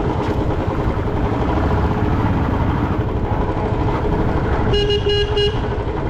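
Royal Enfield single-cylinder motorcycle running along a town road, with steady engine and road noise; near the end a vehicle horn beeps three times in quick succession.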